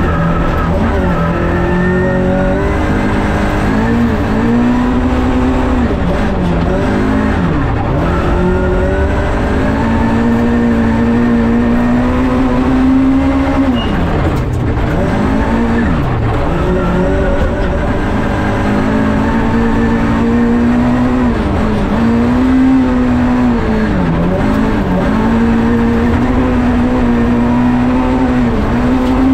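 Rally car engine heard from inside the cabin while driven hard on a gravel stage. It holds high revs for long stretches, and the revs fall sharply and climb back several times, about every eight seconds.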